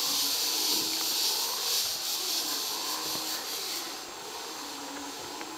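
Rainforest ambience carried by a steady, high-pitched insect drone that drops in level about four seconds in, with faint, short lower animal calls beneath it.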